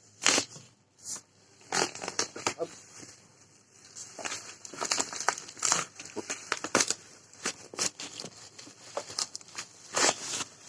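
Packaging crinkling and rustling in irregular bursts as a box is unpacked, with sharp loud crackles about a third of a second in and near the end.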